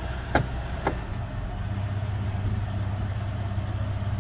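Mercury Grand Marquis 4.6-litre V8 idling on freshly changed oil, heard from inside the cabin. There are two sharp clicks in the first second, and about a second and a half in the idle note settles into a steadier, deeper hum.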